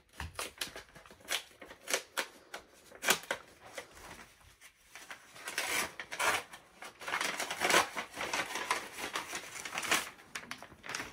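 Paper envelope being torn open and handled by hand: irregular tearing, crackling and rustling of paper, busier and louder in the second half as the card comes out.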